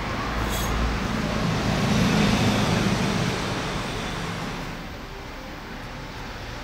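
Road traffic: a motor vehicle drives past, growing louder to a peak about two seconds in and then fading, over a steady outdoor background noise.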